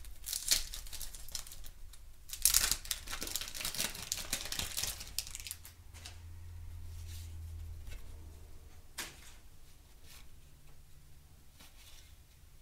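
A 1991 Topps wax-paper card pack being torn open and crinkled, in two bursts of tearing and rustling over the first five seconds. Then comes the softer sound of the baseball cards being handled and fanned, with one sharp click about nine seconds in.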